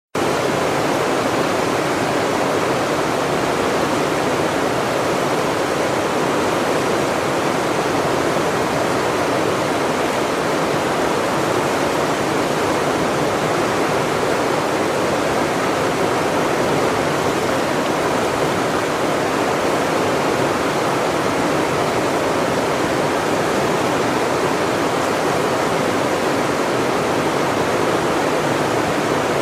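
Steady rushing water of a river or stream, an even, unbroken wash.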